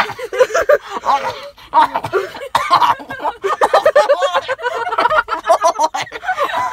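People laughing and snickering in quick repeated bursts, inside a car.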